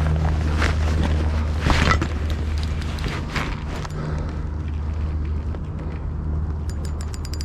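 A few crunching footsteps on creek-bank gravel over a steady low hum. Near the end comes the rapid clicking of a spinning reel's handle being cranked.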